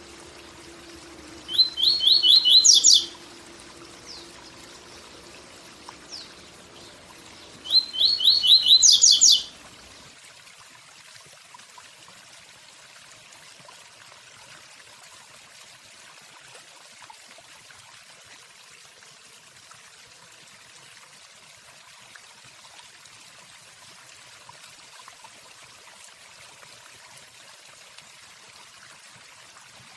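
Papa-capim (yellow-bellied seedeater) singing its 'tui tui zel zel' song twice, each phrase a quick run of repeated high notes lasting about a second and a half, over the steady rush of a waterfall. After the second phrase only the waterfall is heard.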